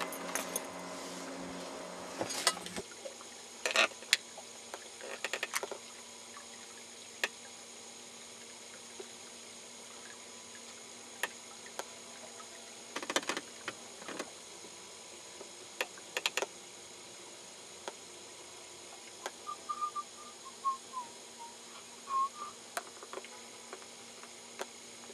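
Quiet on-boat sound with scattered light clicks and knocks from handling rod and gear. A steady low motor hum runs for the first few seconds and cuts off suddenly. About twenty seconds in comes a short run of whistled notes falling in pitch.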